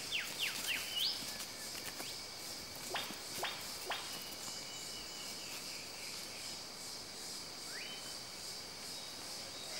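Tropical rainforest ambience: a steady high insect drone, with a bird's quick run of falling whistled notes in the first second, two more falling notes about three seconds in, and a few short rising whistles.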